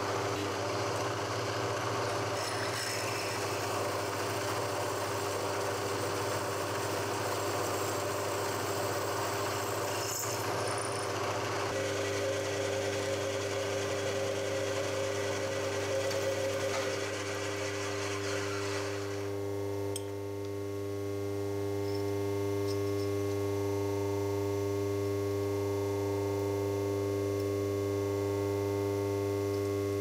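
An electric workshop machine runs with a steady hum. A harsher grinding or cutting noise sits over the hum until about two-thirds of the way in, then stops, leaving the plain machine hum.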